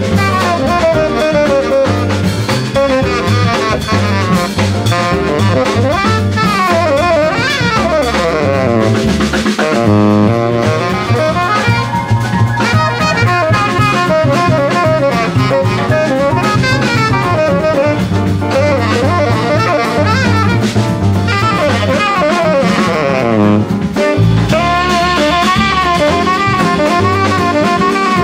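Jazz quartet of saxophone, piano, bass and drum kit playing. The saxophone leads with fast rising and falling runs over a walking bass line and drums.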